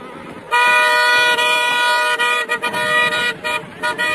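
Vehicle horn sounding: one long steady blast starting about half a second in, then broken into a string of short honks near the end.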